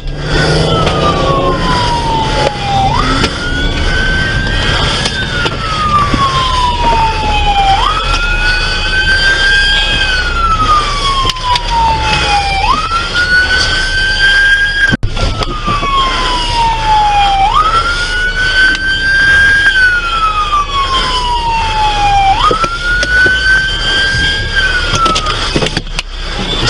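Police car siren wailing. Each cycle leaps up quickly, holds briefly at the top, then slides slowly down, repeating about every five seconds over the engine and road noise of the moving car.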